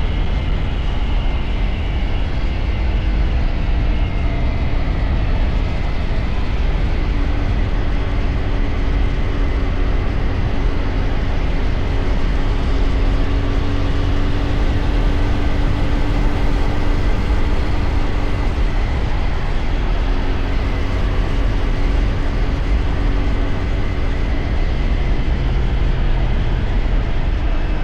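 CFMoto 450SR's parallel-twin engine running at a steady cruise while riding, its pitch drifting gently up and down without hard revving, over a heavy, steady low rumble.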